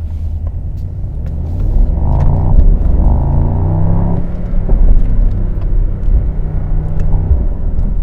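2022 Mercedes-AMG SL 63's 4.0-litre twin-turbo V8 accelerating in Sport Plus mode. It gets louder about two seconds in, with a few exhaust crackles.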